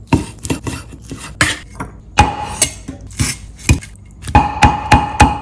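Cleaver chopping BBQ pork and roast chicken on a wooden cutting board: sharp knocks at an uneven pace, then a quicker, steady run of about three strokes a second near the end.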